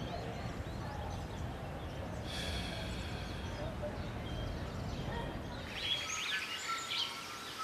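Steady low ambient rumble of background noise, with birds chirping faintly in the last two seconds.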